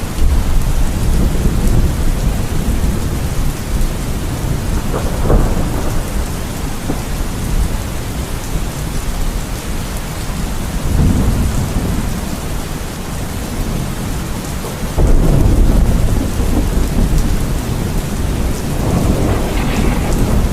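Steady rain falling, with deep rolling thunder rumbling under it in several swells, the loudest beginning about fifteen seconds in.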